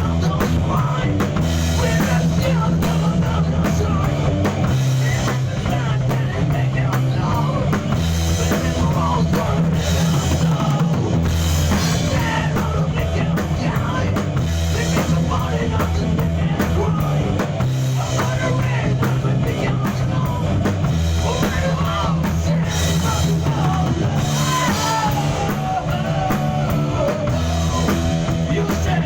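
Rock band playing live in a rehearsal studio: drum kit, electric guitar and a steady low bass line, with a melodic lead line bending above them.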